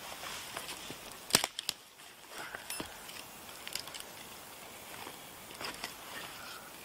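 Small twig campfire crackling as it catches from firelighters, with scattered sharp cracks, the loudest about a second and a half in.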